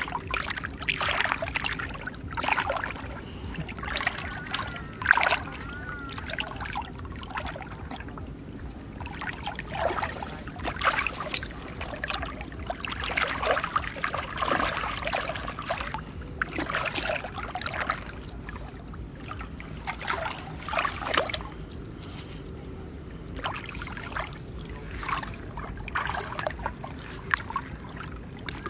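Hands and arms sloshing and splashing through shallow muddy water, in irregular bursts.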